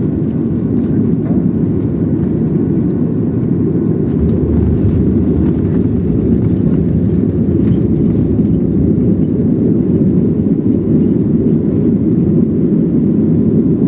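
Boeing 737 cabin noise on the ground just after landing: a loud, steady rumble of the engines and airframe as the plane rolls along, with faint light rattles.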